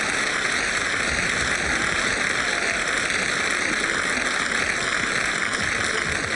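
Studio audience applauding, a steady even wash of clapping that holds at one level throughout.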